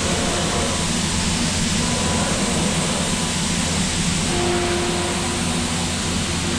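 Heller CP 6000 five-axis machining center finish-milling with a ball end mill: a steady rush of machine and spindle noise over a low hum, with a short held tone about four seconds in.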